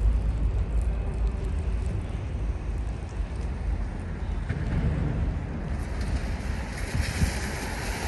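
Outdoor street ambience in falling snow: a low wind rumble on the microphone over distant traffic, with a hiss that builds from about six seconds in.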